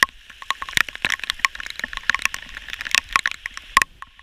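Heavy rain falling, with many irregular sharp taps of drops striking close by over a steady hiss.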